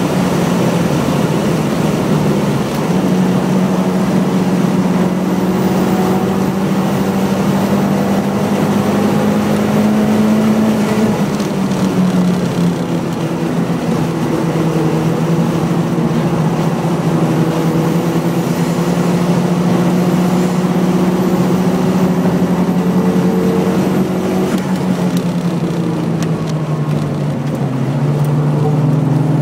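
Nissan 180SX kouki's turbocharged SR20DET four-cylinder under hard track driving, heard from inside the cabin: a steady engine note that climbs slowly through long pulls and drops in pitch twice, about eleven and twenty-four seconds in, over steady wind and tyre noise.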